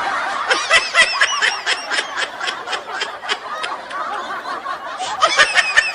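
High-pitched snickering laughter in quick, even pulses, about five a second. It eases off in the middle, and a second quick run of laughs comes near the end.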